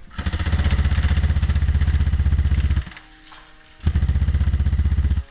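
Airsoft electric gun firing on full auto: two long bursts of rapid, evenly spaced shots, the first about two and a half seconds long and the second, after a pause of about a second, about a second and a half.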